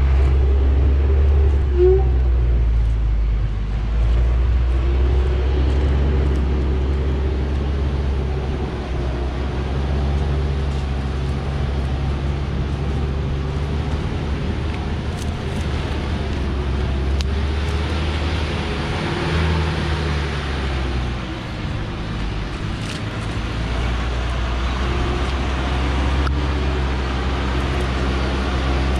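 Loaded log truck's diesel engine running hard under load as it climbs a steep dirt track with a full load of acacia logs, a steady low drone whose note shifts about two-thirds of the way through.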